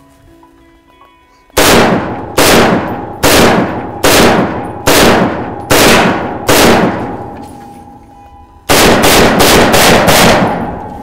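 AK-pattern rifle firing: seven single shots just under a second apart, each ringing out with a long echo, then a quicker string of about six shots near the end.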